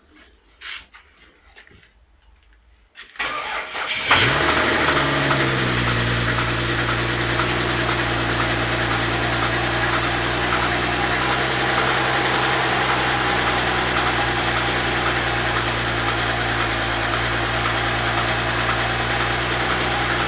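BMW N54 twin-turbo inline-six cranked by the starter, catching about four seconds in with a brief rev flare, then idling steadily with a knock, until it is switched off at the very end. The owners suspect from the knock's rhythm that it comes from the timing chain.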